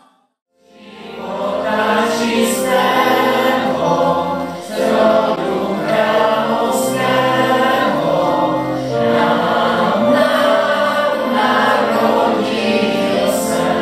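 A group of voices singing a Czech Christmas carol together, starting after a brief silent moment at the beginning.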